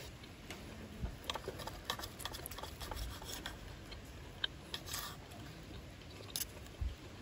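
Eating with cutlery: irregular light clicks and taps of a spoon and knife against an aluminium mess tin and an iron griddle plate, thickest in the first few seconds.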